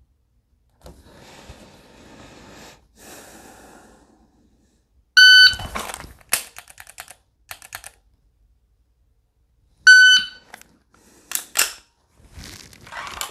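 AMG Lab Commander shot timer giving its start beep, a short held tone, followed by a quick run of sharp clicks from the draw and dry-fire trigger presses. A second identical beep about four to five seconds later marks the end of the par time, followed by a couple more clicks.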